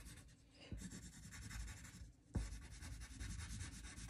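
Graphite pencil scratching faintly across paper in short, quick strokes as palm fronds are sketched, stopping briefly about two seconds in.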